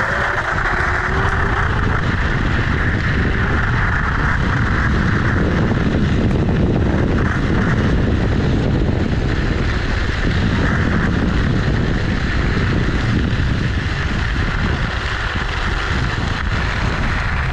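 Knobbly tyres of an electric scooter rolling over a gravel path, a steady crunching rumble with wind buffeting the microphone.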